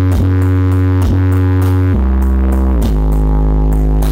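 Bass-heavy electronic DJ music played very loud through a stacked wall of subwoofer cabinets in a horeg sound-system check. Deep sustained bass notes slide down to a lower note about halfway through, with regular hi-hat ticks above.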